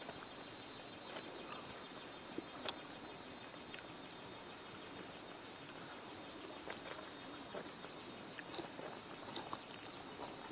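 Steady high-pitched drone of forest insects, with a few faint soft ticks scattered through it.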